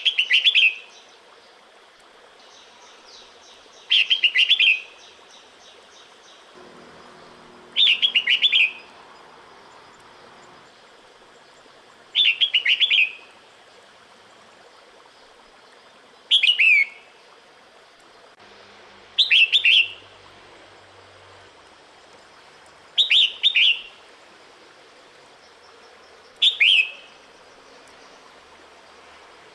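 A female red-whiskered bulbul giving a short, loud call about every three to four seconds, eight times in all: the breeding-season call a hen uses to call in a male.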